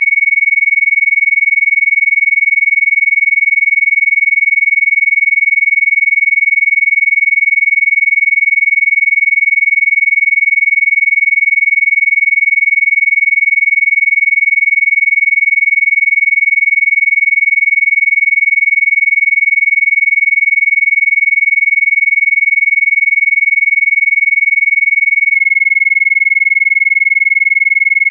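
Steady, high-pitched electronic sine tone of a Rife-frequency track, shifting to a slightly lower pitch about 25 seconds in as the next frequency begins.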